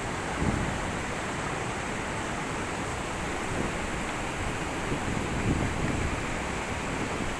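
Waterfall, water rushing steadily, with low gusts of wind buffeting the microphone now and then.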